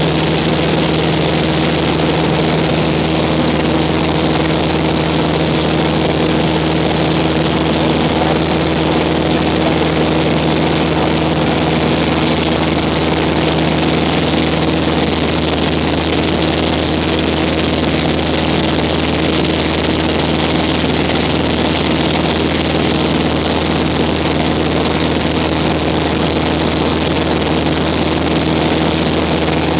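Cessna 182's piston engine and propeller running steadily in flight, heard inside the cabin: a constant low hum under an even hiss, with no change in pitch.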